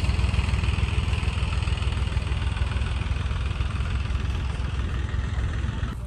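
Farm tractor's diesel engine idling with a steady low throb, growing slightly fainter.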